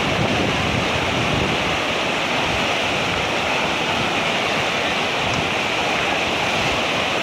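A river in flood, muddy water rushing past in a steady, loud wash of churning standing waves.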